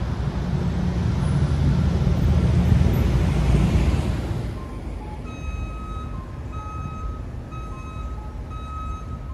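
Downtown street traffic: a vehicle passes close by, its road noise swelling and then fading over the first four seconds or so. Then repeated electronic beeps sound about once a second over steady traffic noise.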